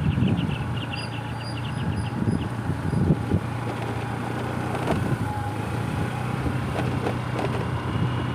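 A motor vehicle's engine running steadily, with wind noise. A rapid high chirping trill sounds over it for the first couple of seconds.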